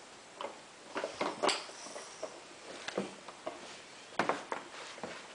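Scattered light taps and knocks, a dozen or so, in no regular rhythm.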